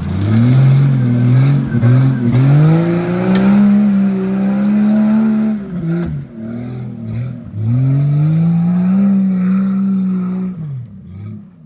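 Jeep engine revving hard under load in two long pulls. The pitch climbs and holds for about five seconds, drops off, then climbs again and falls away near the end.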